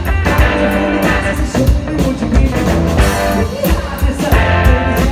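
Live rock music: an electric guitar played over a drum kit that keeps a steady beat.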